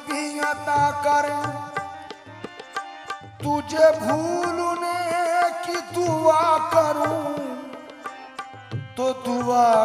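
Live qawwali music: harmoniums holding chords while tabla keeps a steady beat, under a lead voice singing a wavering, ornamented melodic line that swells about four seconds in.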